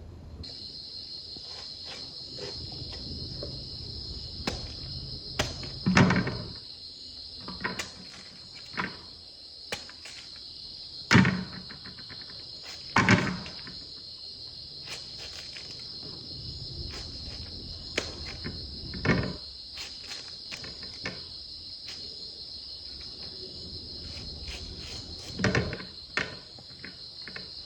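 Crickets chirring steadily in a high, even drone, with irregular knocks and clatter of handled objects over it, five louder ones spread through.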